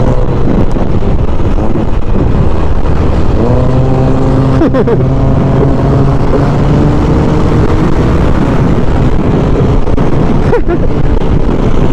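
Wind buffeting the helmet microphone over a motor scooter's engine running at highway speed, its pitch rising about three and a half seconds in as it speeds up. Passing traffic adds brief pitch sweeps about five and ten and a half seconds in.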